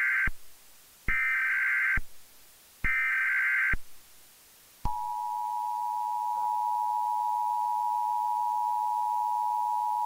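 Emergency Alert System SAME header: three short bursts of screechy data tones, about a second each, then about five seconds in the steady two-tone EAS attention signal (853 and 960 Hz) begins and holds.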